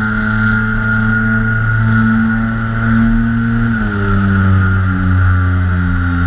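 Twin electric motors and propellers of a TwinStar model plane, heard through its onboard camera, running with a steady hum. The pitch glides down about four seconds in as the throttle is eased, and the two motors then pulse slightly against each other.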